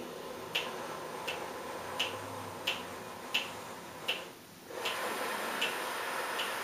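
A metronome clicks steadily, about three clicks every two seconds, over one long, even breath. First comes a slow inhale drawn through a hand cupped against the lips, which makes a suction sound used to monitor a steady inhale. After a short gap about four and a half seconds in, a steady exhale follows against a hand held in front of the face.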